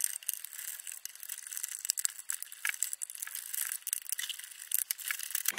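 Plastic parts of a toy RC car's chassis and front axle clicking and rattling as they are handled and pulled apart by hand: a string of small irregular clicks and knocks.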